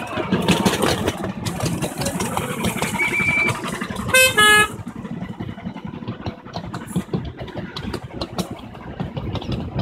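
Miniature railway train running, its wheels clicking steadily over the rail joints. About four seconds in, the locomotive gives two short, loud toots, the second slightly lower.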